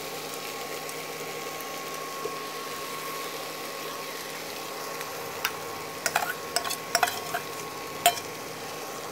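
Mashed vegetables being stirred into a frying onion-tomato masala in a steel pan with a wooden spatula: a steady low sizzle, with a cluster of sharp knocks and scrapes of the spatula against the pan in the second half.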